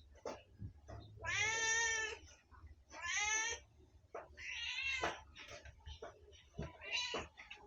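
Domestic cat meowing four times, the longest call starting about a second in, with short clicks and taps between the calls.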